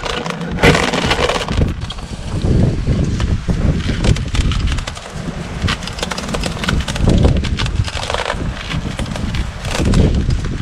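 Dried corn being shelled by hand: cobs scraped in repeated, uneven strokes down a wooden board sheller with a metal prong, and the loosened kernels rattle into a plastic basin.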